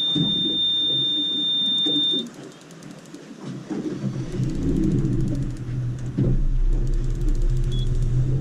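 A steady, high electronic beep that stops about two seconds in, then a boat engine starting up and running at a steady low rumble that grows louder about six seconds in.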